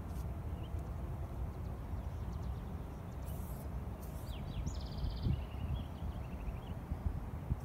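Outdoor background: a steady low rumble, with a few short chirping bird calls about halfway through and a couple of brief faint hisses just before them.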